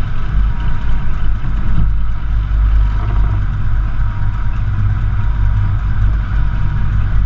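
Small-block V8 pickup engine idling steadily, close up, with the pulling sled's tractor engine running alongside.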